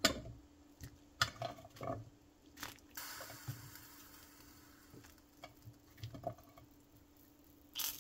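Pieces of green plantain dropping into a pot of simmering chicken broth, with several small splashes and knocks in the first three seconds, then the broth bubbling softly with a faint hiss.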